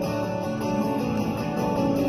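Instrumental break in a worship song: guitar playing steady held chords, with no singing.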